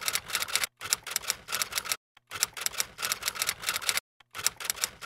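Typewriter-style typing sound effect: rapid key clicks in runs of a second or two, broken by short pauses.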